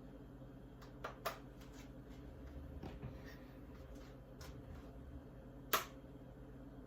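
Snowman decorations being handled and put onto a refrigerator door: a few sharp clicks, two close together about a second in and the loudest near the end, over a steady low hum.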